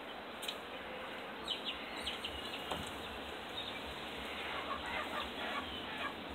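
Young pigeon flapping its wings while perched on a hand to be fed, with faint scattered clicks and a few short bird calls.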